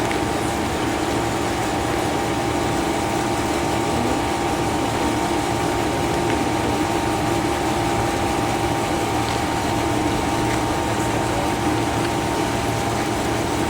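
A machine running steadily: a constant hum with two unchanging tones over an even background noise.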